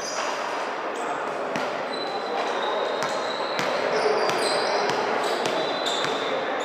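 Many voices chattering in a large, echoing indoor sports hall, with scattered sharp knocks of a volleyball being hit and bounced.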